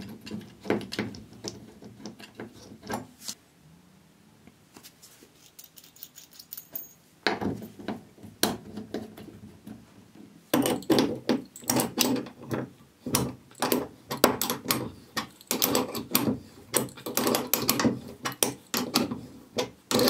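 Adjustable wrenches clinking and knocking on the metal fittings of a toilet's shutoff valve as it is worked off the pipe and a new quarter-turn compression ball valve is tightened on. A few scattered clicks at first, a lull, then a dense run of clinks from about halfway.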